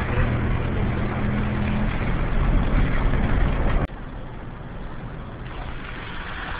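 Car driving noise: a steady low engine hum under a loud rush of road noise, cutting abruptly to a quieter, even rush about four seconds in.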